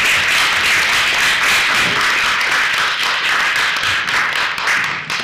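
Audience applauding: many hands clapping at once, a dense steady patter that starts to die away near the end.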